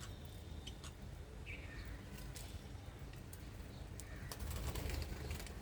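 Small birds giving a few short falling chirps, with scattered sharp clicks and taps over a steady low outdoor rumble.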